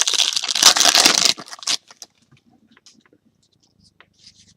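Trading card pack wrapper being torn open with a loud rasping rip for about the first second and a half, then faint rustling and small clicks as the cards are handled.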